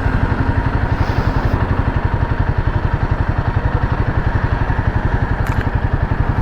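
Royal Enfield Himalayan 450's 452 cc liquid-cooled single-cylinder engine idling steadily, with an even, rapid pulse of exhaust beats.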